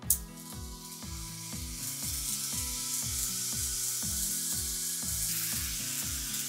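Background music with a steady beat and a sliding bass line. A loud hissing wash, like a cymbal or noise sweep, comes in with a sharp hit at the start and fades away near the end.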